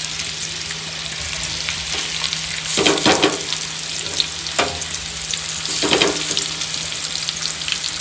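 Masala-coated fish pieces shallow-frying in hot oil in an iron tawa: a steady sizzle that swells louder about three and six seconds in.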